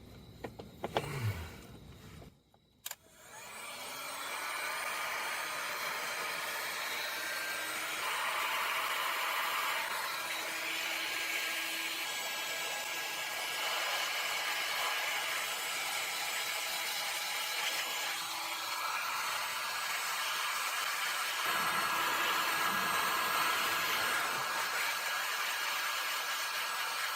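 Heat gun blowing steadily to shrink heat-shrink tubing over crimped wire connections. It starts about three seconds in, after a few light handling clicks.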